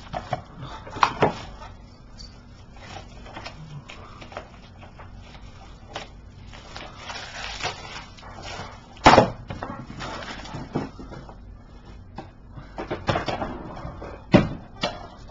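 Plastic shrink-wrap being crinkled and peeled off a DVD case, with scattered crackles and a few sharp knocks of the case being handled, the loudest about nine seconds in.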